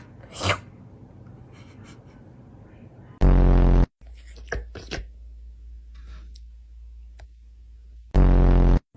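Cat licking its fur with soft, wet smacking clicks. Twice, about 3 seconds in and about 8 seconds in, a loud low buzzing tone cuts in for about half a second and stops abruptly.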